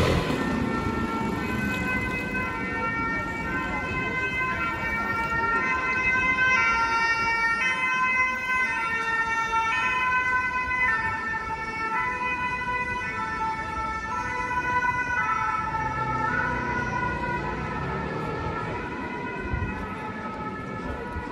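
Emergency vehicle's two-tone siren alternating between two pitches, growing louder over the first several seconds, then fading away in the second half, over street traffic noise.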